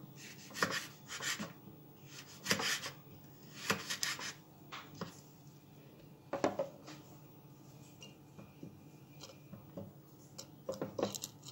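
A knife slicing a green tomato into wedges: a scattering of short, irregular cuts and clicks.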